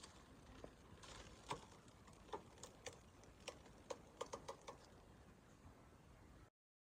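Near silence with faint, scattered light clicks and taps, about a dozen of them, bunched between about one and a half and five seconds in; the sound cuts off abruptly near the end.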